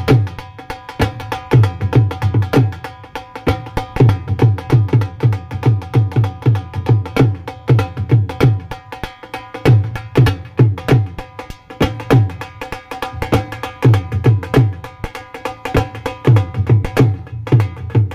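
Music with a fast, dense percussion beat and deep bass hits in quick runs, over steady held notes, played loud through a sound system under test.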